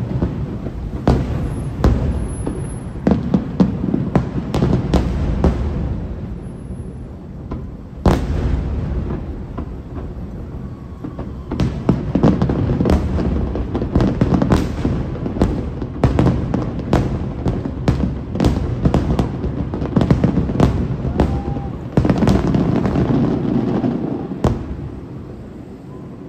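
Aerial fireworks display: a rapid barrage of shell bursts, sharp cracks and booms over a rolling low rumble, with one big boom about eight seconds in. The bursts thin out near the end.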